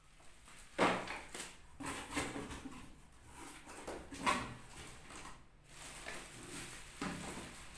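Plastic wrapping crinkling and a cardboard box being handled, in irregular rustles with a few sharper knocks.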